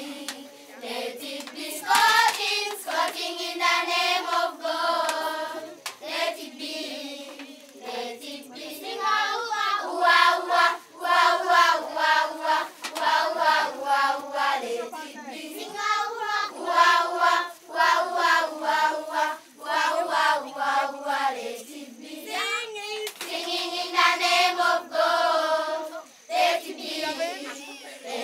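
Group of children singing a song together, with hand clapping.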